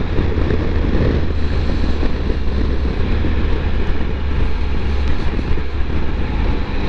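Steady wind rush on a helmet-mounted camera's microphone, with a Triumph Tiger 1200 motorcycle's three-cylinder engine running at an even cruise underneath, on a wet road.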